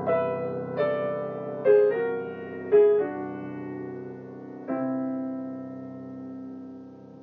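Piano playing a slow run of struck chords built on open fifths, five chords in all, the last one held and left to ring and fade over the final seconds.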